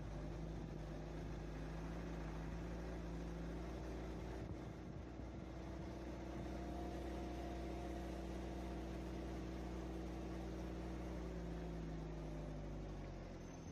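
An engine running steadily with a low, even hum. Its pitch shifts slightly about four seconds in, and it fades near the end.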